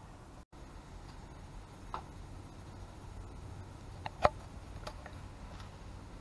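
A few light clicks and taps of tools and brake parts being handled during reassembly, the sharpest a double click about four seconds in, over a low steady hum.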